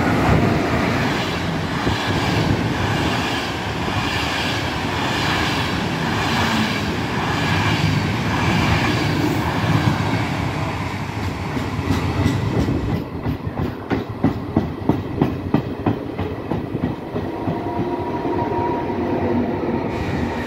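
ÖBB Nightjet passenger train, an electric locomotive hauling couchette coaches, passing through a station at speed with a steady rolling rumble. From about two-thirds of the way in, the wheels clatter rhythmically over the rail joints, about two to three clacks a second, until the last coaches have gone by.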